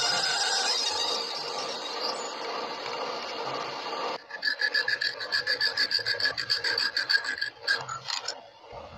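Abrasive work on a metal part: a steady rasping for about four seconds, then a rapid, even run of short rasping strokes with a faint ringing, which stops shortly before the end.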